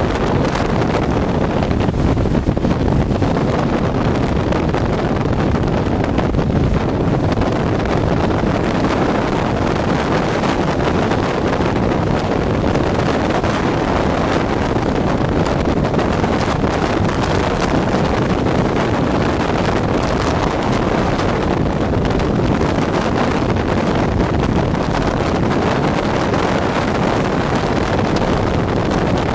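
Strong gale wind buffering the microphone in a steady, loud rumble, over the noise of storm surf breaking against a stone breakwater.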